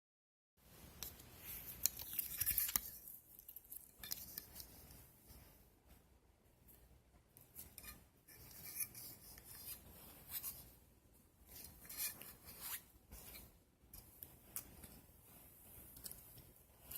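Slime being handled and squeezed, making irregular small sticky clicks and crackles, busiest about two seconds in.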